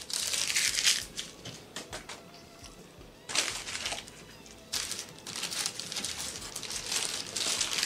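Paper fast-food sandwich wrappers crinkling as they are handled and unwrapped, in bursts: one right at the start, a short one about three seconds in, and a longer stretch through the second half.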